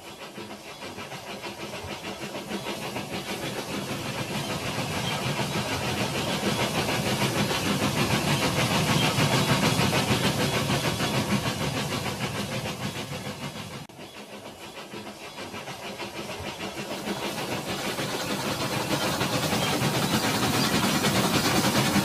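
Battery-powered Rail King toy trains running on plastic track: a steady whirring rattle from the small motor and wheels that grows louder as a train nears and passes. The sound breaks off suddenly about two-thirds of the way in, then builds up again as a second train approaches.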